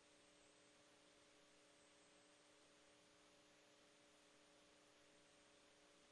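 Near silence: a faint steady hiss with a low hum of a few steady tones.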